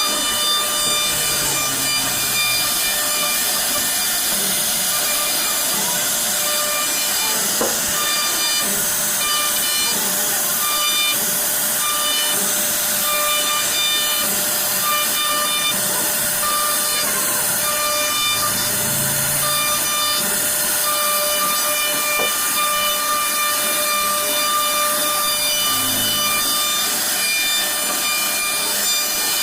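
CNC router spindle carving wood: a steady high whine over a dense cutting hiss, the whine tones dropping in and out as the bit works.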